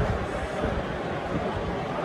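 Football stadium crowd noise during live play: a steady murmur of many distant voices with a low rumble.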